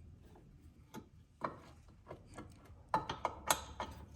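Scattered light metallic clicks and knocks of a pry bar and suspension parts as a sway bar link is worked into line on a car's front lower control arm, the clicks coming closer together near the end.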